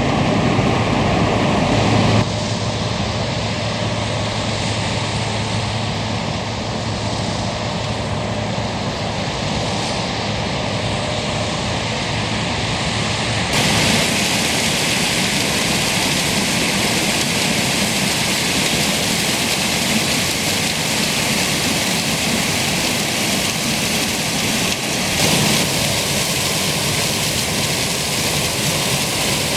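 Combine harvesters working in standing corn: a steady engine and threshing din with no distinct events. The overall tone shifts abruptly about 2, 13 and 25 seconds in.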